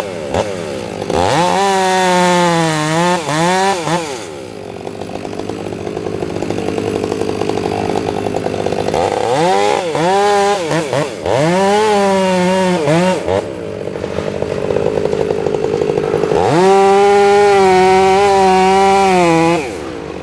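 Chainsaw revving up in three bouts as it cuts logs down to size: the first about a second in, the second around ten seconds in, and the longest near the end. Between them it drops back to a lower idle.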